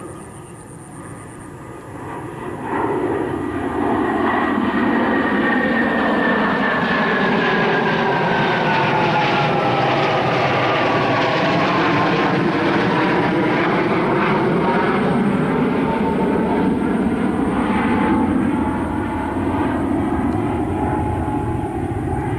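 Two Sukhoi Su-30 fighter jets passing overhead, the noise of their twin AL-31F turbofan engines building up over the first few seconds and then staying loud and steady. A whine through the noise falls in pitch as the jets go by, then levels off.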